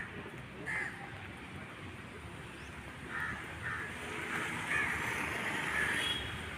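Birds calling: a few short calls about a second in, then a run of calls that grows denser and longer toward the end, over a steady low background hum.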